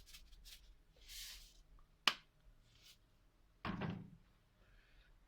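Kitchen handling noises: a brief soft rustle, a sharp click about two seconds in, and a dull thunk a little before four seconds.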